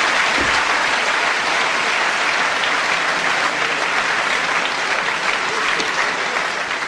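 Large hall audience applauding, a dense continuous clapping that slowly eases.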